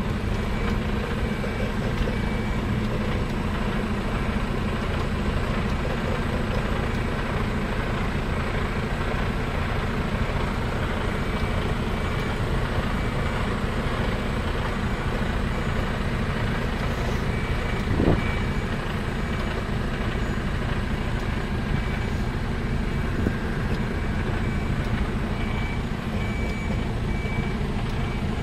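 Truck's diesel engine running with a steady low rumble while a reversing alarm beeps on and off in a high, evenly repeating tone. A single brief knock about eighteen seconds in.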